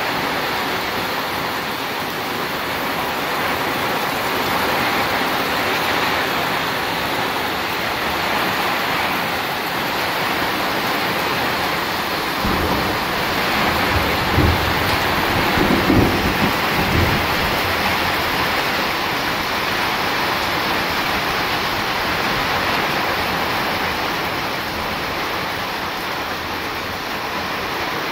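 Steady rain falling, with a low roll of thunder about halfway through that rumbles for several seconds in a few swells.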